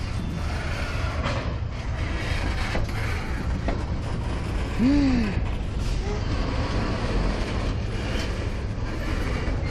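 Freight train of tank cars rolling past on the rails at close range while backing up: a steady low rumble of wheels and cars. A short rising-and-falling squeal about five seconds in.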